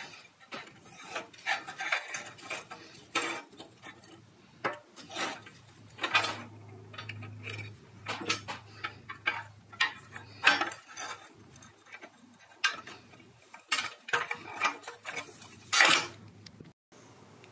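Small metal parts of an antique safety razor blade sharpener clinking and clattering as they are handled and taken apart, in irregular taps and clicks.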